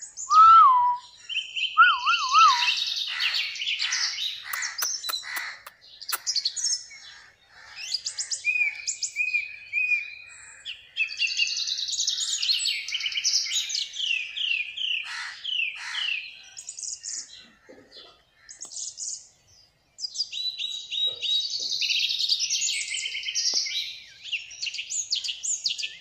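Young Alexandrine parakeet chattering in bouts of rapid, high chirps and trills, with a couple of short wavering whistles in the first few seconds and a brief lull about two-thirds of the way through.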